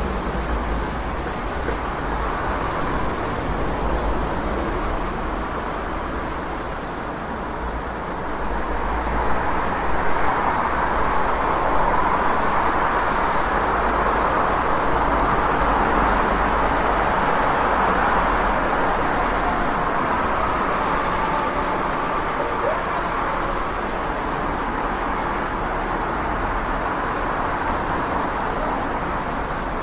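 City street traffic: a continuous rush of passing vehicles, swelling about eight seconds in as traffic builds and easing off again in the last third.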